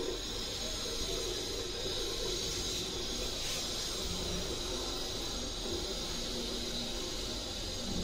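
Samsung EcoBubble 8 kg top-load washing machine draining its tub after the last rinse: a steady hiss of water running out, with a low hum underneath.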